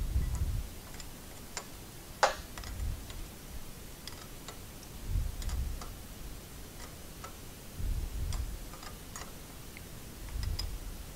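Scattered light clicks and taps of metal floor-jack parts being handled and fitted during reassembly, with a sharper click a couple of seconds in and several dull low bumps.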